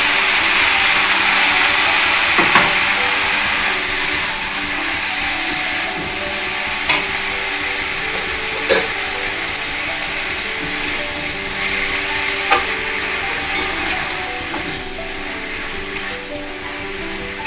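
Red leafy greens (lal shak) and potato pieces frying in mustard oil in an aluminium kadai, with a steady sizzle that slowly gets quieter. A metal spatula scrapes and clinks against the pan now and then as the greens are stirred.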